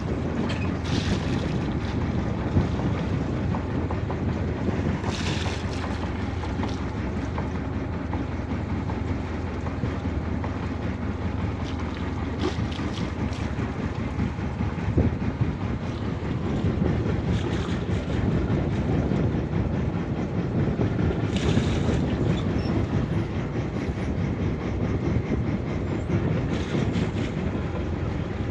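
Steady low rumble of wind buffeting the microphone on a boat at sea, with a few brief hisses now and then.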